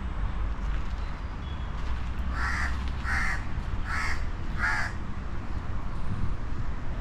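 A crow cawing four times in a row, about two-thirds of a second apart, over a steady low background rumble.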